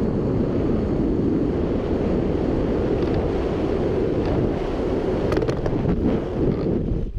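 Steady wind rushing over an action camera's microphone in paraglider flight, a loud, deep buffeting of air.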